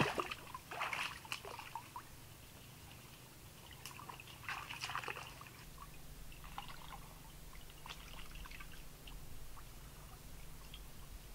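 Shallow lake water sloshing and trickling in short irregular bursts as hands rummage in it, with a few small clicks.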